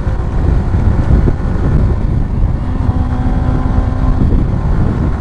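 Motorcycle engine running at highway speed under heavy wind rush on the microphone.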